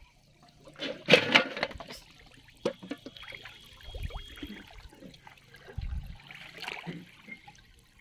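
Water splashing: a loud splash about a second in as a caught fish drops into a water-filled aluminium pot, then lighter, scattered sloshing of shallow pond water as someone wades through it pushing the pot.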